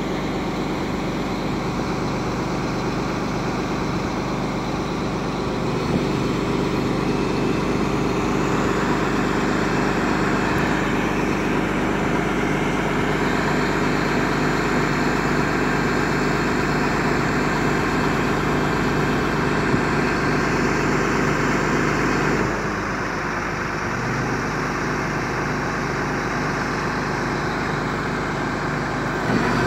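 DAF 75 truck's diesel engine running steadily while it powers the Fassi loader crane as the boom is raised. The engine note changes about six seconds in and again around twenty-two seconds in.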